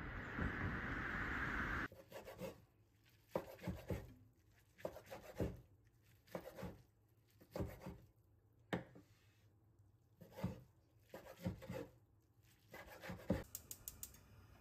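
Steady hiss that cuts off about two seconds in, then a kitchen knife cutting soaked seaweed on a wooden cutting board: separate strokes about once a second, with a few quick taps near the end.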